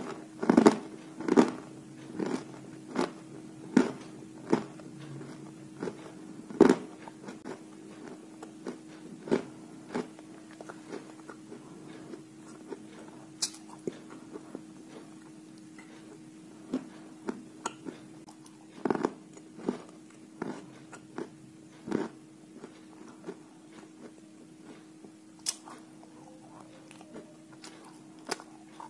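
Dry white chalk pieces being bitten and chewed: irregular sharp crunches, loudest and closest together in the first couple of seconds, then spaced out a few seconds apart.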